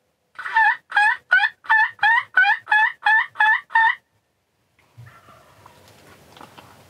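A series of about ten loud turkey hen yelps, evenly spaced at roughly three a second, stopping about four seconds in.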